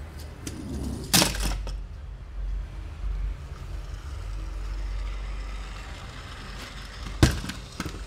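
Handling noises from unboxing toy cars. There are two sharp clacks, about a second in and again near the end, with a few lighter clicks between them, over a low steady hum.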